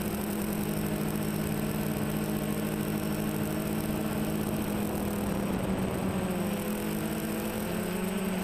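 Quadcopter's electric motors and propellers humming steadily as it flies, recorded by the camera on the airframe, over a rush of noise. The pitch of the hum wavers and shifts in the last few seconds as the throttle changes.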